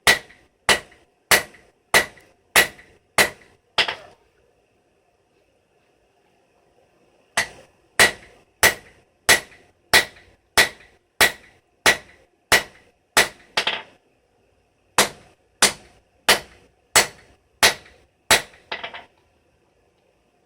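Hand hammer forging steel on an anvil, each blow ringing sharply, struck at about three blows every two seconds in three steady runs with short pauses between, ending in a few quick lighter taps.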